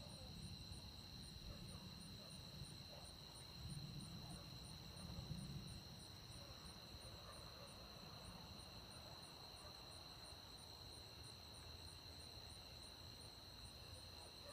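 Night insects calling: a steady high trill with faint chirps above it, repeating about three times a second. Under them is a faint low rumble that swells briefly about four and five seconds in.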